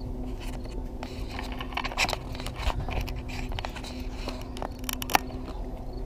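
Handling noise on a GoPro's microphone: irregular clicks, crackles and scrapes over a low rumble and a faint steady hum, with a quick run of clicks about five seconds in.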